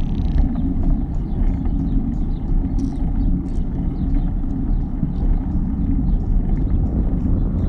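Wind buffeting the microphone of a phone riding along on a moving bicycle: a steady low rumble with scattered light clicks and rattles.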